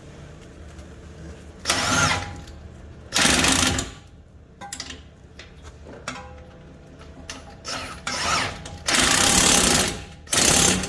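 A cordless impact wrench running on a 21 mm nut or bolt in five short bursts, about two seconds in, three and a half seconds in, and three more close together near the end.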